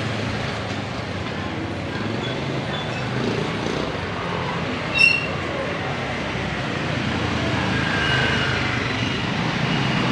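Steady city street ambience of passing traffic, with a short, sharp high-pitched sound about halfway through.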